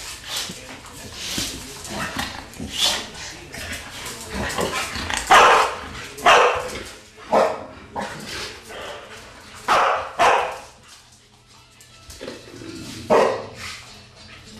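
American bulldog barking at animals on a television screen: a string of short, loud barks with pauses between them, the loudest coming in two runs, about five to seven seconds in and again around ten seconds, with one more near the end.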